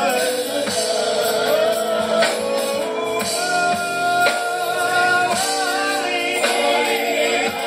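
Live gospel music: a singer holding and bending long notes over a band with steady percussion.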